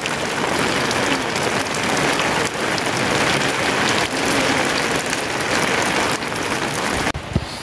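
Heavy rain falling, a dense, steady hiss. Near the end the hiss drops off sharply to a lighter rain with a few low drips.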